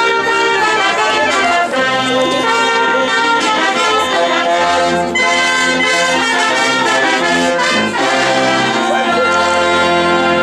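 Brass music: trumpets and trombones playing held chords over a low bass line that moves from note to note.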